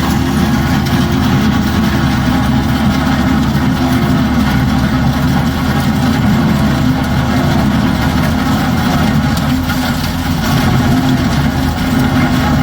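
Concrete cutting machine's engine running steadily at a constant pitch.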